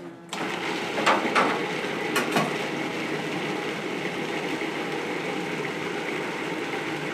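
Food processor starts about a third of a second in and runs steadily, grinding raisins, walnuts and soy milk into jam. A few knocks come in the first couple of seconds as the whole pieces are chopped.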